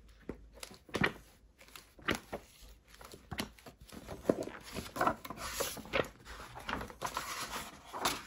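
Pages of a large, heavy art album being turned by hand: a series of paper swishes and sharp flaps as the stiff, glossy leaves fall over, about one a second.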